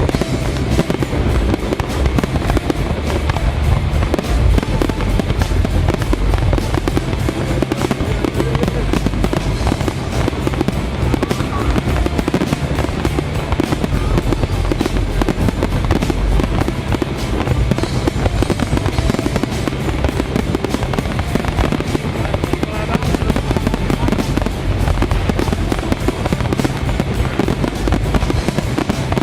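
Fireworks going off in a dense, continuous barrage of bangs and crackles, with music playing along.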